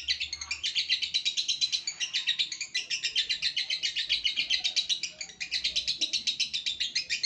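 Lovebird chirping nonstop in a rapid, even run of high chirps, about eight to nine a second, with short breaks about two and five seconds in.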